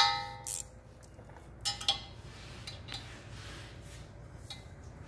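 Metal hand tools and hardware clinking on the wood chipper's blade bolt: one sharp clink that rings on briefly, a lighter one half a second later, two quick clinks just under two seconds in, then a few faint ticks.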